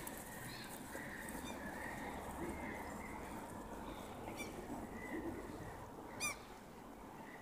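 Birds calling: a string of short, wavering calls, with a sharper, louder call about six seconds in.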